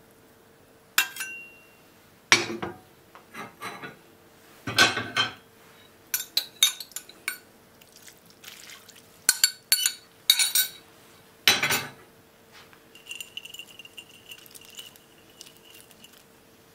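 Metal spoon and spatula knocking and clinking against a cast-iron skillet, with glass clinks from a measuring cup, in a string of sharp separate strikes over about eleven seconds. A faint steady hum runs underneath.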